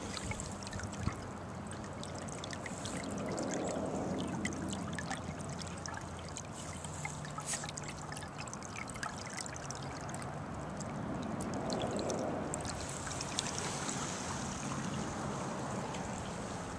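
Water trickling steadily from a sump pump's discharge pipe into a ditch full of standing water.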